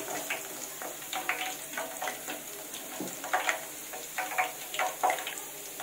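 Curry leaves deep-frying in hot oil: a steady sizzle with frequent sharp crackles from the bubbling oil, as a wire frying strainer is stirred through them.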